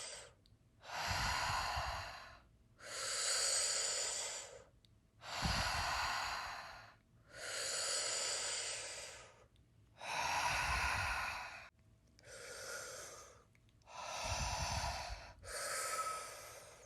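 A person breathing deeply and rhythmically, each inhale running straight into an exhale with no hold, about four full breaths: the fast-paced breathing round of a Wim Hof-style breathing exercise.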